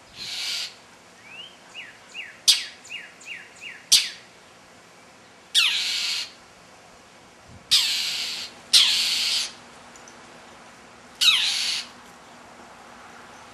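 Northern mockingbird scolding a cat with harsh, raspy calls, five of them, each about half a second long. In the first few seconds there is a quick run of short, thin down-slurred whistled notes and a couple of sharp clicks.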